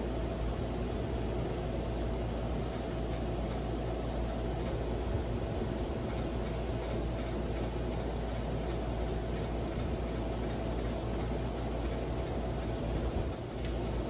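Vintage Silkon SCF-UCC-52 ceiling fan running steadily on high speed: an even motor hum with a thin steady whine and the rush of air from the blades. The motor bearings are still good, but something in the fan vibrates, which the owner places inside the switch housing.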